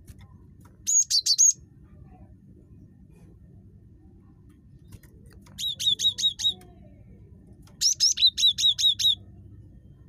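Cinereous tit (gelatik batu) singing: three quick bursts of rapidly repeated high, sharp notes, the first short and the last the longest, over a faint steady low rumble.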